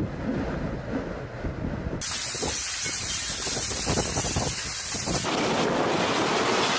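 Storm noise: wind buffeting the microphone with a low rumble, then a sudden switch about two seconds in to a loud, steady hiss of driving rain or spray, which changes abruptly again about five seconds in.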